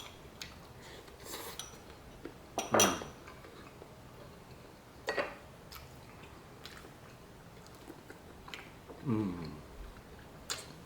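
Utensils clicking and clinking on dishes during a meal, with louder clatters about three and five seconds in. A short falling hum follows near the end.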